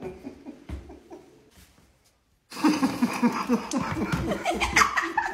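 Laughter fading out, then a brief gap and a fresh burst of laughter that runs on.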